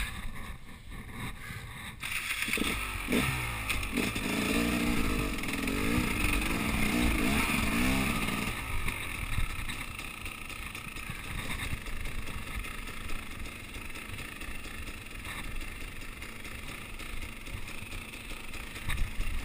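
KTM 300 EXC two-stroke enduro motorcycle engine on the move. About two seconds in it picks up and revs, its pitch rising and falling, for several seconds, then drops back to a lower, quieter run at light throttle.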